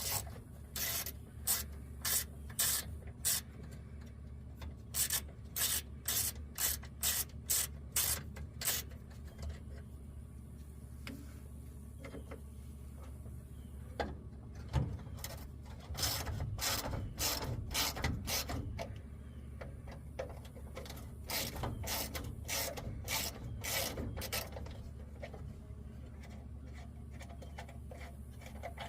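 Hand socket ratchet clicking in three runs of quick strokes, about three or four clicks a second, with pauses between, as bolts are worked loose.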